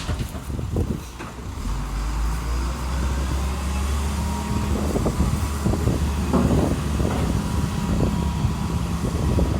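The engine of a heavy vehicle or road machine running steadily with a low hum, which settles in about a second and a half in, with scattered knocks and scrapes over it.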